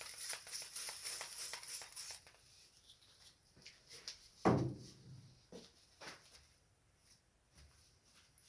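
Small handling noises at a workbench: a crackly hiss with many small clicks for about two seconds, then a few scattered clicks and one louder knock about four and a half seconds in.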